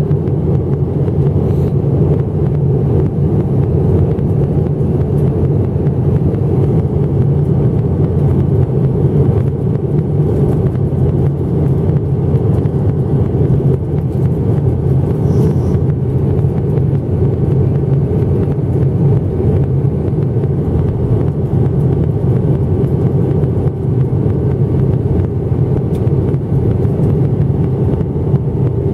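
Steady cabin noise of an Airbus A319 airliner in flight, heard from a window seat over the wing: an even, unbroken rumble of engines and airflow.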